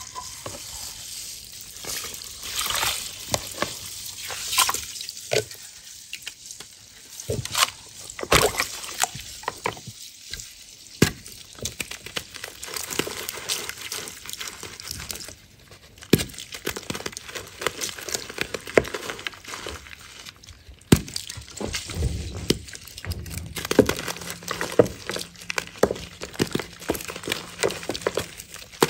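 A giant water-soaked block of reformed gym chalk being broken apart and crumbled by hand: continuous crunching and crackling, with a few louder sharp snaps as pieces break off.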